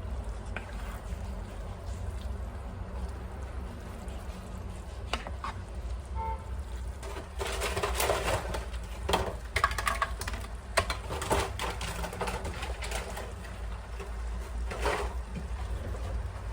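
Kitchen cooking sounds over a low steady hum, with a run of clinks and scraping of utensils in the middle and a brief clatter near the end.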